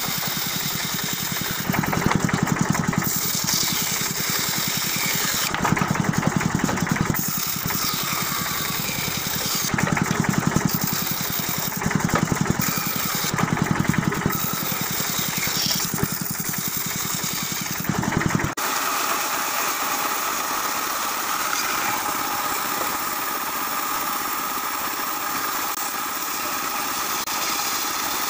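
Band saw running and cutting thick wood into curved chair-leg blanks. The blade's sound gets louder in several stretches of a second or so as it bites into the timber. About two-thirds of the way through it changes abruptly to a steadier, even saw hum.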